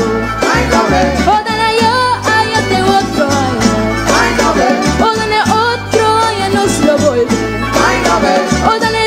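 Live Aruban dande folk music from a band with guitars and a hand drum: a bending melody line over a steady bass line.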